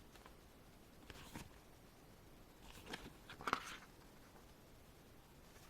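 Faint handling sounds of an album photobook's pages being turned: a few brief soft rustles, the loudest about three and a half seconds in.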